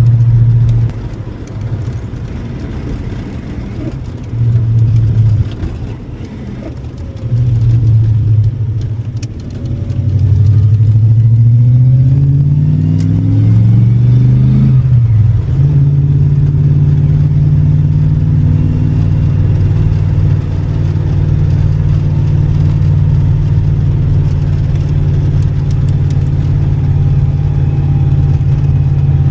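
A 5-litre V8 in a manual Holden Commodore VP SS on the road. It is loud at first and eases off about a second in, then comes on again in two short loud bursts. The revs climb steadily from about ten seconds in, drop off sharply at a shift around fifteen seconds, and then hold a steady cruising drone.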